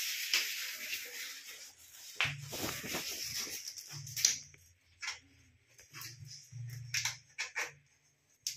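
Plastic clicks and light knocks as the hinge fittings of a plastic soft-close toilet seat are handled, some sharp and some soft. A hiss fills the first two seconds and fades.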